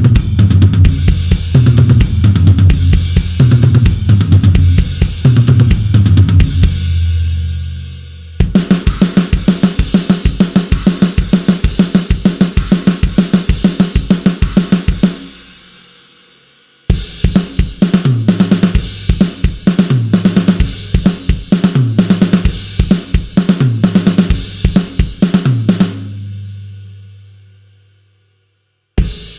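Sampled rock drum kit from the Blasting Room Signature Series Drums library playing patterns of kick, snare, toms and cymbals. The middle passage is a fast, even run of hits. The last passage repeats fills that step down in pitch across the toms and rings out to silence, before a new pattern starts right at the end.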